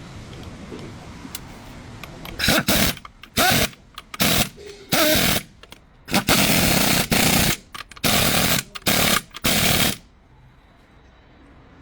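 Power tool run in about eight short, loud bursts with brief pauses between them, the longest over a second, starting a couple of seconds in and stopping near the end.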